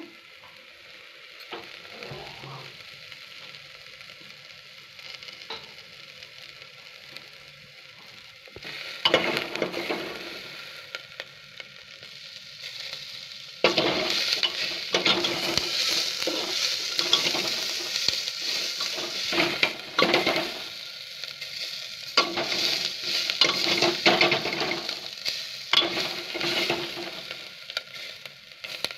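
Sliced onions frying and sizzling in mustard oil in an aluminium pressure cooker as they soften toward golden brown. The sizzle is faint at first and grows louder about halfway through, when a steel ladle stirs and scrapes them round the pot in repeated strokes.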